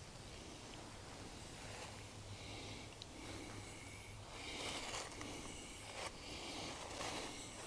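Footsteps rustling through dry fallen leaves, a run of short crunchy steps starting about halfway in after a few seconds of faint hiss.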